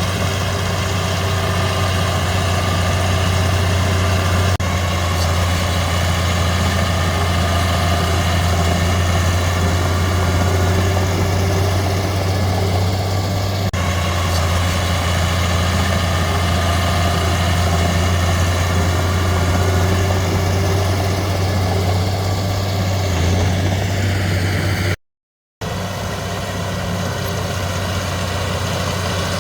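Heavy diesel engine of earthmoving machinery running steadily with a strong low hum and no revving. The sound cuts out for about half a second near the end, then resumes.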